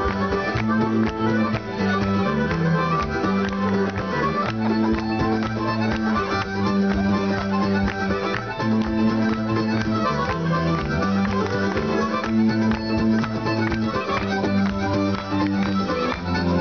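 Live Celtic folk music: a fiddle leads a dance tune over steady bass notes and a regular beat.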